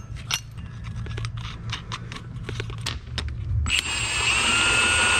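Small metal clinks and taps as a bolt and nut are fitted through a shock extension bracket by hand. About three and a half seconds in, a cordless power tool starts and runs with a steady whine, driving the nut down onto the bolt.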